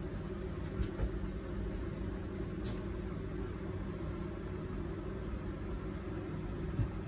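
Steady low mechanical hum, with a few faint clicks.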